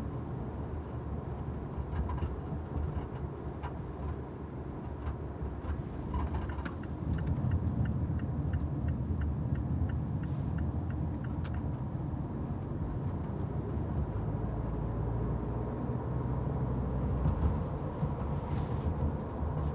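Cabin of a 2014 Mazda 6 (GJ) driving over an uneven road: steady tyre and road rumble with scattered knocks and rattles. The owner hears the knock only on rough surfaces and takes it to come from the boot or from behind a rear strut; its cause is unknown. A run of even ticks comes in for a few seconds in the middle.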